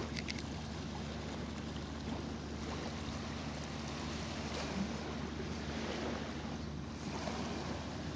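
Steady wind noise on the microphone over small waves washing onto a sandy beach.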